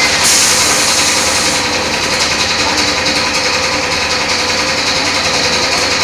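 Thermocol plate-making machine running with a steady mechanical drone, with a burst of hiss starting about a quarter second in and lasting just over a second.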